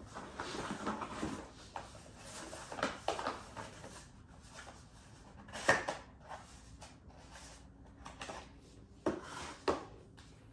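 Cardboard packaging being handled: rustling and scraping as a small cardboard accessory box is lifted out of a molded cardboard tray, with a sharp knock about halfway and two more near the end.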